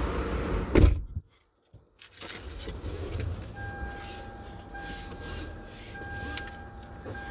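Low rumble of a car's interior. A short loud knock is followed by about a second of dead silence, starting about a second in. From about halfway, a faint steady high tone joins the rumble.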